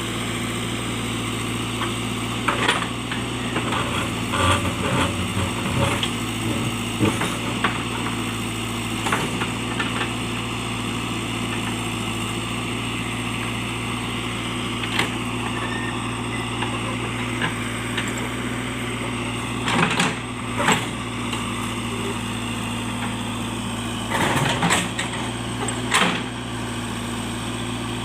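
JCB backhoe loader's diesel engine running steadily under work, with short sharp knocks and cracks now and then, in clusters near the start, around the middle and near the end.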